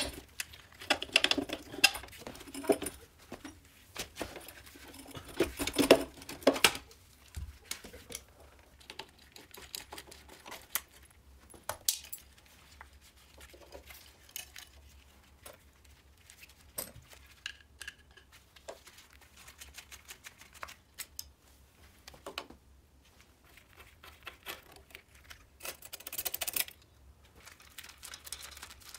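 Irregular clicks, taps and light metallic rattles of moped parts being handled and fitted by hand. They come thick in the first several seconds, then sparse, with another cluster near the end.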